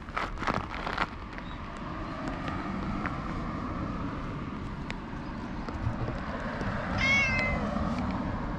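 Ginger tabby cat gives one short meow about seven seconds in while being stroked.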